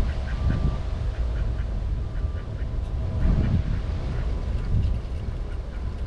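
Mallard ducks quacking in short calls, over a steady low rumble of wind on the microphone.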